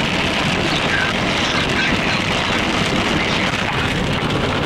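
Steady rushing noise inside a car driving through heavy rain: rain hitting the windows and body, tyres on the wet road, and wind.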